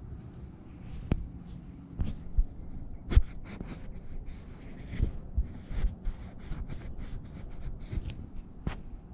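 Irregular sharp clicks and knocks, a dozen or so, over a low rumble, the loudest about three seconds in.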